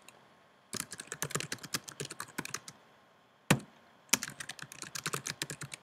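Typing on a computer keyboard: two runs of quick keystrokes split by a pause, with a single louder key press about three and a half seconds in.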